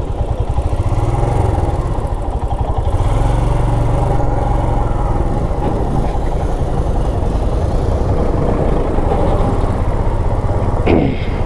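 Motorcycle engine running steadily at low road speed, heard from the rider's position in slow traffic, with a brief louder knock near the end.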